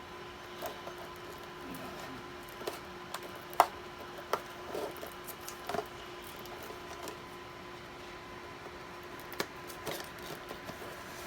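Scattered light clicks and rustles of things being handled, the sharpest about three and a half seconds in, over a faint steady hum.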